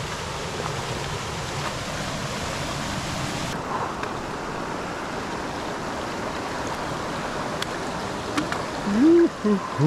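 Steady rushing of a mountain stream. Near the end a short voiced sound rises in pitch.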